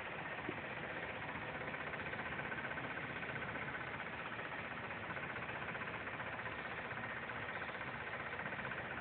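Audi A4 1.8T's turbocharged four-cylinder engine idling steadily with a fast, even rattle over the running sound; the cause of the rattle is unknown to the owner.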